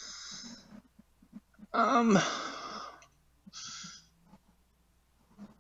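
A person sighing: a loud, breathy exhale about two seconds in that drops in pitch, with shorter breaths before and after it.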